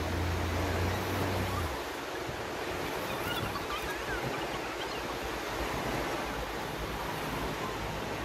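Sea surf washing onto a sandy beach, a steady rush of breaking waves with wind on the microphone. A low hum stops about a second and a half in.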